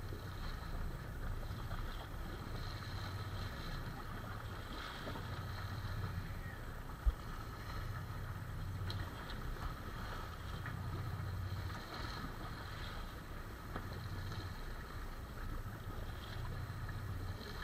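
Wind and water noise aboard a boat at sea, with a low rumble that swells and fades every couple of seconds and a single sharp knock about seven seconds in.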